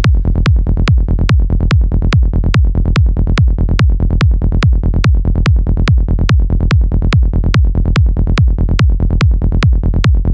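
Psytrance music stripped down to a steady four-on-the-floor kick drum at about 145 beats a minute, with a rolling bassline between the kicks and little else on top.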